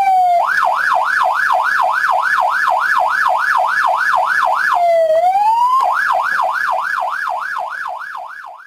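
Electronic police siren: a falling wail switches about half a second in to a fast yelp of about three sweeps a second, breaks briefly into a slow rise around five seconds in, then yelps again and fades out near the end.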